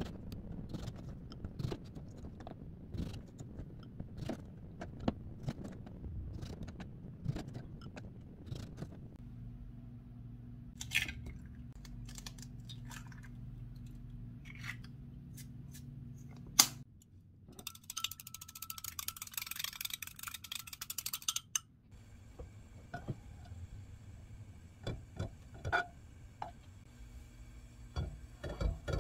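Kitchen prep: a knife cutting cherry tomatoes on a plastic cutting board in a string of light taps. Later eggs are cracked into a glass cup, with one loud sharp crack followed by a few seconds of hiss. Near the end there are soft knocks as a bagel is set into a frying pan.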